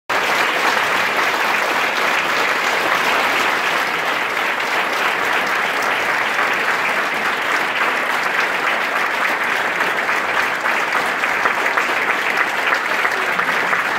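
Concert audience applauding: steady, dense clapping from many hands.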